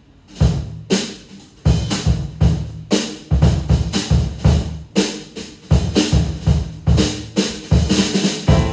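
Pearl drum kit played as a jazz intro: bass drum, snare and cymbals in a busy pattern of strikes, starting a fraction of a second in. Pitched piano notes come in clearly near the end.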